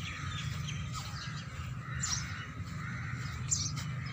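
Birds chirping, with short high calls a few times, over a steady low hum.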